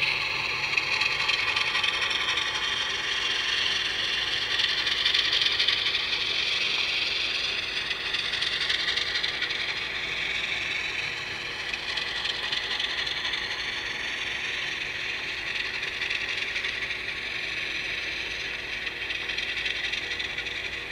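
Model railroad freight cars rolling steadily past, their small wheels rattling on the track in a continuous high-pitched rush.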